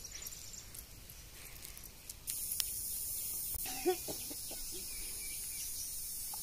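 Steady high-pitched drone of insects, which the speaker calls a loud 'kirr kirr' kirkira. It sets in about two seconds in, with a short faint vocal sound near the middle.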